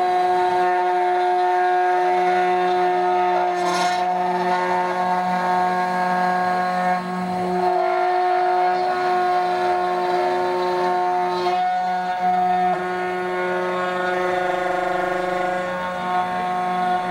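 500 W CNC router spindle with a 3 mm end mill cutting a coconut half shell: a steady whine with a rough cutting noise under it, wavering briefly a few times as the bit loads up in the shell.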